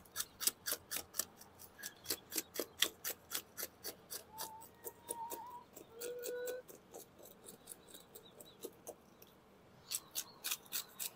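Small serrated knife scraping the scales off a black sea bass on a plastic cutting board, in quick, even strokes of about three to four a second. The strokes stop for about a second near the end, then start again.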